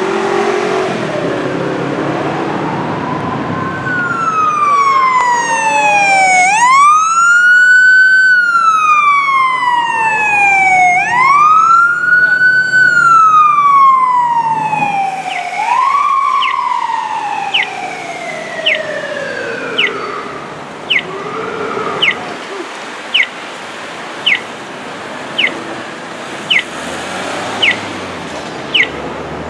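Emergency vehicle siren wailing, each cycle rising quickly and falling slowly, about four and a half seconds apart, fading out about 20 seconds in. After that a short high chirp repeats about once a second.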